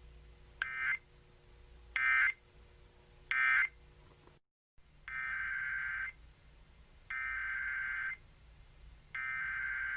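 Emergency Alert System SAME digital data bursts, a buzzy two-tone warble. First come three short end-of-message bursts that close one warning. After a brief dropout come three longer header bursts, about a second each, that open the next severe thunderstorm warning.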